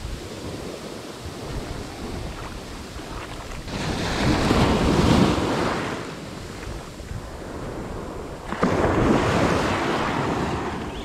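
Ocean surf washing up a sandy beach, with two louder waves surging in, about four seconds in and again near the end. Wind is buffeting the microphone.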